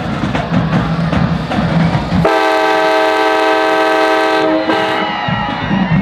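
A train horn blowing one long multi-note chord, starting about two seconds in and cutting off after about two and a half seconds, over a dense stadium din before and after it.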